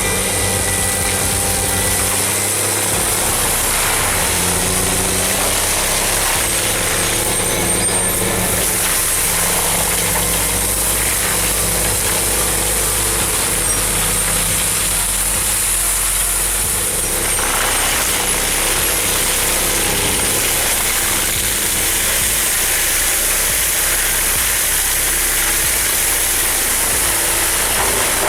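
Forestry mulcher's diesel engine running steadily, with a continuous hiss over it.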